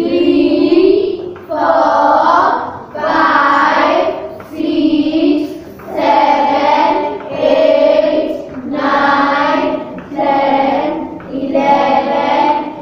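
A class of children counting aloud in unison, chanting one number about every second and a quarter.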